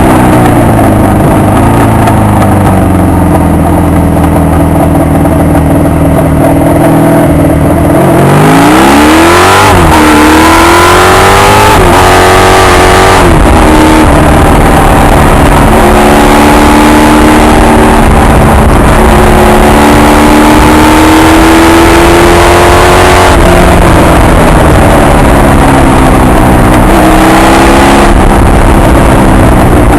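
Honda VF750 V4 motorcycle engine at low revs, then about eight seconds in it revs up hard with two quick gear changes, runs steadily, eases off and picks up again near the end. Wind noise rushes over the microphone once it is under way.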